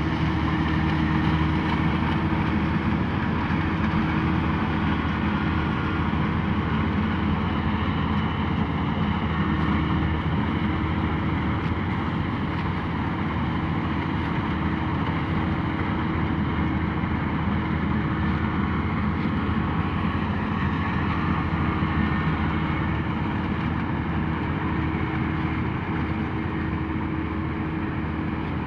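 Kubota DC-35 rice combine harvester running steadily, a continuous engine-and-machinery drone with a few steady tones that hold level throughout.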